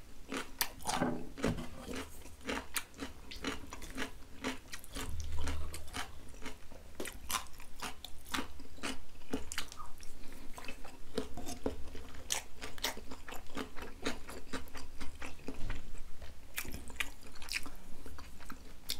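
Close-miked chewing of braised green-onion kimchi with pork belly: a quick, irregular run of wet mouth clicks and smacks throughout.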